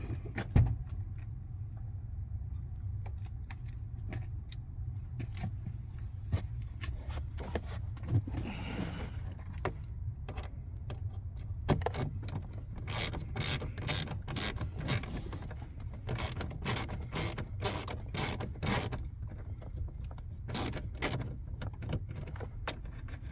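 Hand work on a car's interior trim and screws: irregular sharp metallic clicks and rattles, most of them bunched together in the second half, over a steady low hum.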